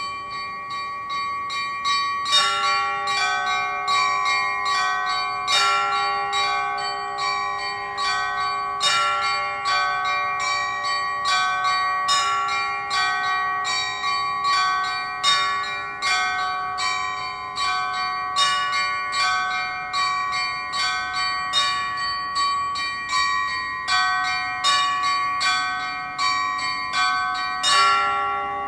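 Russian Orthodox church bells rung together in a peal before the Divine Liturgy: several bells of different pitch struck in a quick, steady rhythm, with a stronger stroke on the big bell about every three seconds. The strokes stop near the end and the bells ring on as they fade.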